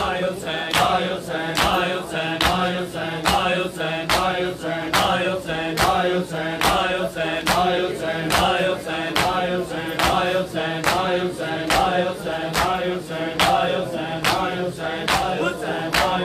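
Noha chanted by male voices in a mourning rhythm, with a crowd's matam, open-handed chest beating, landing as a sharp slap a little faster than once a second.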